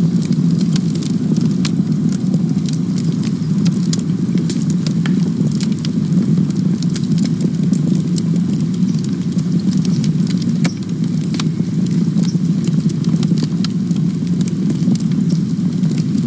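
Campfire burning: a steady low rumble with frequent sharp crackles and pops of burning wood scattered through it.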